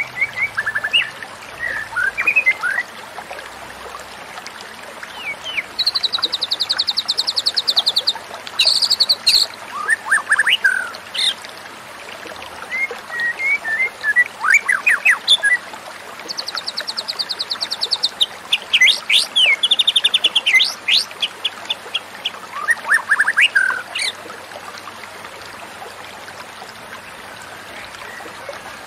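White-rumped shama singing in varied phrases of chirps, whistles and fast high trills, with pauses between them and a long pause near the end, over a steady faint hiss.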